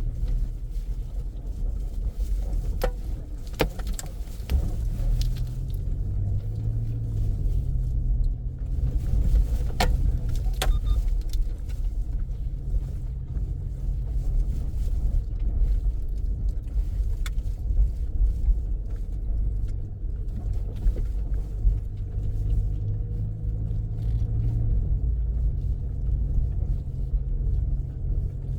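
Vehicle engine running steadily with low road rumble, as heard from a moving car; its pitch shifts briefly about six seconds in. A few sharp knocks sound around three to four seconds in and again about ten seconds in.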